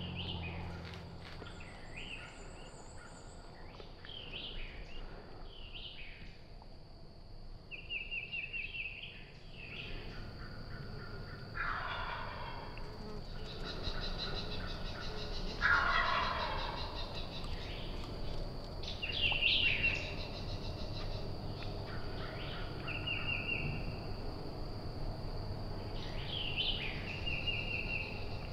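Wild turkey gobbler gobbling twice, loudest about twelve and sixteen seconds in, answering and coming closer. Between the gobbles come several short runs of turkey yelps, and a small songbird trills faintly near the start.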